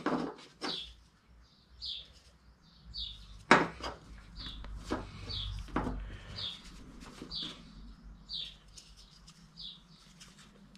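Handling noise from a rubber-cased oil seal being pressed into a 3D-printed plastic seal carrier: a few clicks and knocks, the loudest about a third of the way in. Behind it, a bird gives a short high chirp about once a second.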